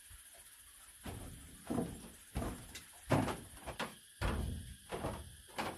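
A series of about ten irregular knocks and thuds over a steady high hiss, beginning about a second in.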